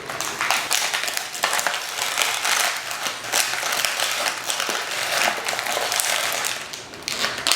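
Plastic toy packaging being torn open and crinkled by hand: a continuous run of rustling and crackling.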